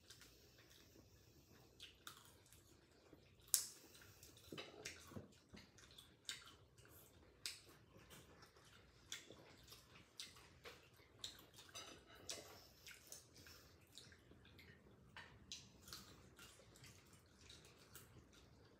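Faint mouth sounds of two people eating cherries and fried chicken: chewing, lip smacks and small wet clicks, scattered irregularly, the sharpest about three and a half seconds in.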